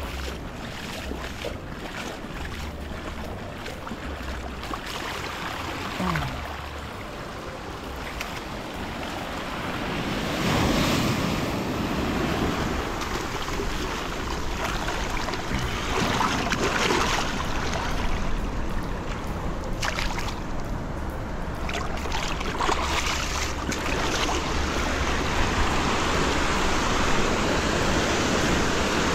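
Surf breaking and washing up a sand beach around the feet, swelling every several seconds and growing louder toward the end.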